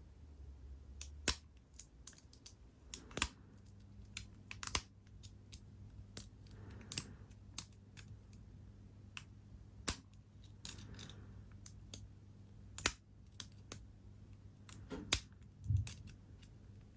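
Lock pick and tension wrench working the pins of a Yale padlock: irregular sharp metal clicks and light scraping, a few clicks standing out louder.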